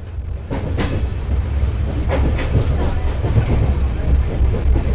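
Track sounds from on board an LHB passenger coach running at speed: a steady low rumble of wheels on rail, with sharp clacks as the wheelsets pass rail joints, several in quick pairs. The sound fades in over the first second.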